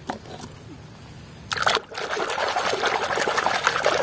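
A few light clicks of plastic toys knocking together, then, about a second and a half in, muddy water splashing and sloshing in a plastic basin as a hand scrubs a toy in it.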